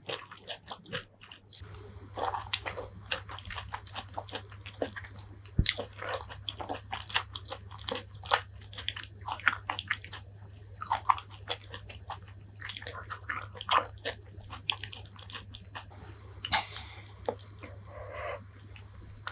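Close-miked chewing and biting of a chili-coated green eggplant, many quick irregular mouth clicks and smacks. A faint steady low hum runs underneath from about a second and a half in.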